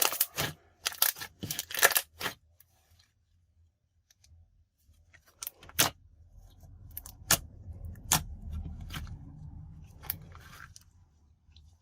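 Hand-played slime making sharp clicks and pops as it is stretched and pressed: a quick run of them in the first two seconds, then a short pause, then scattered pops. The slime is stretchy and not sticky after softening with glycerin and activator-free additives.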